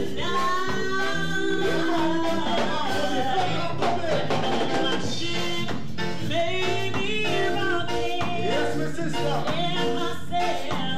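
A woman singing live into a microphone over upbeat band music with a steady beat and keyboard.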